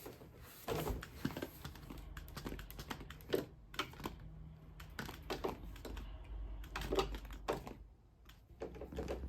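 Scattered light taps and clicks at irregular intervals, a few of them louder knocks, as of small hard objects being handled.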